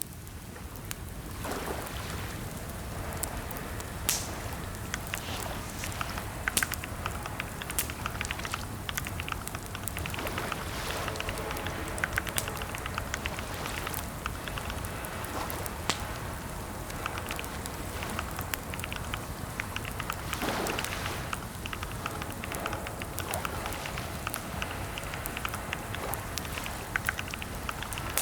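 Computer keyboard typing: irregular runs of key clicks, some keystrokes louder, over a steady low hiss.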